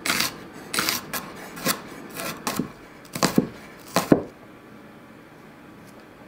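Chef's knife chopping celery and then onion on a wooden cutting board: about a dozen sharp, uneven blade strikes against the board, some in quick runs. The strikes stop a little after four seconds in.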